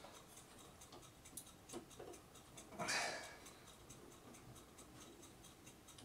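Faint ticking and clicking of a small screwdriver driving screws into a 2.5-inch solid state drive in its metal drive bracket, with a brief louder rustle about halfway through.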